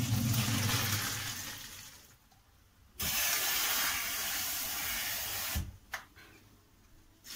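Pasta and its water poured from a pot into a colander in a stainless-steel kitchen sink, splashing in two spells: the first fades out after about two seconds, the second starts suddenly about three seconds in and cuts off sharply. A single knock near the end.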